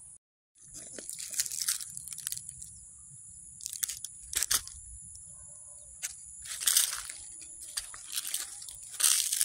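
Irregular crunching footsteps on dry, clumpy soil and weeds, loudest in clusters about a second and a half in, around four and a half seconds, and near the end. Behind them runs a steady, high-pitched insect drone from crickets. All sound drops out briefly right at the start.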